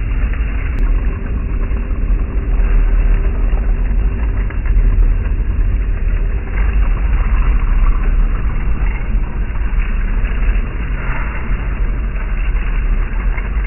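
Heng Long M1A2 Abrams RC tank driving over dry leaves: a continuous low rumble, a faint steady whine through the first half, and crackling of leaves under the tracks.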